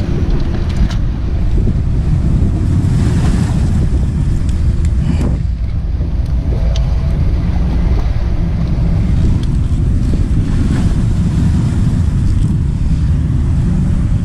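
Steady wind rumbling on the microphone, mixed with the wash of the sea around breakwater boulders, with a few faint knocks.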